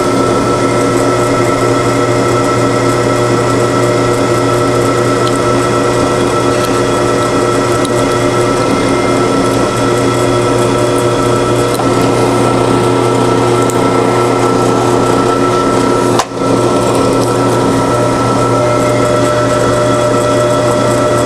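Drill press motor running steadily while the bit drills dry into a snapped-off bolt in an old engine casting, with a brief dip in the sound about sixteen seconds in.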